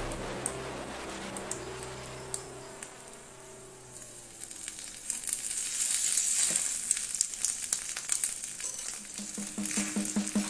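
Egg sizzling and crackling as it cooks against a very hot metal ball, with many small pops. The sizzle grows louder about halfway through.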